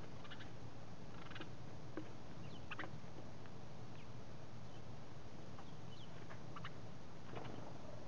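House sparrows giving scattered faint short chirps, about a dozen at irregular intervals, over a steady low background hum.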